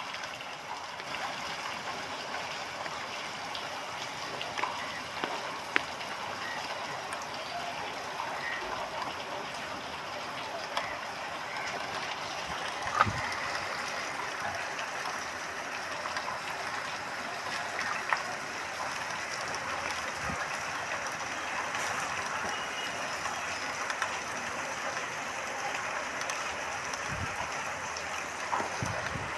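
Heavy rain falling steadily as an even hiss, with a few sharp taps of drops standing out now and then.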